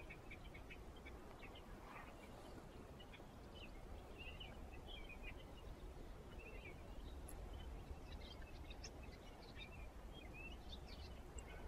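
Quiet outdoor ambience: faint, scattered bird chirps over a steady low rumble.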